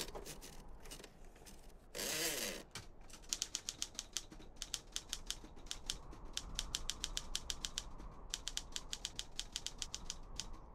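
Typewriter keys striking in a steady run of about six clacks a second, after a short burst about two seconds in.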